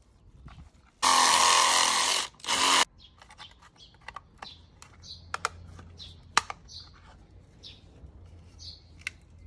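A power tool runs briefly twice, about a second and then a short burst, trimming the square hole in a metal plate. Then come light clicks and taps as the plate and the black plastic mount are handled and test-fitted.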